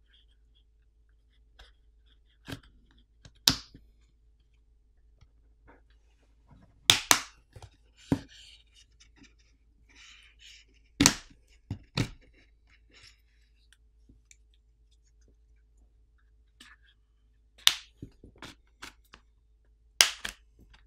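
Plastic catches of a Google Pixel 4a 5G's back housing snapping loose from the midframe as a plastic pry pick is worked along the edge: a string of sharp clicks at irregular intervals, with faint scraping between them.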